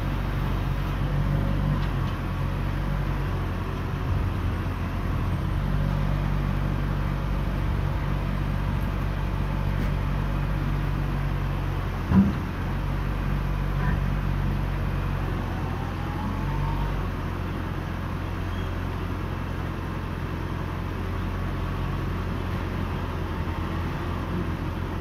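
Small crane truck's engine running steadily, driving the hydraulics of a Unic mini crane as its control levers are worked and the boom is raised; the low drone shifts a few times. A single sharp knock about twelve seconds in.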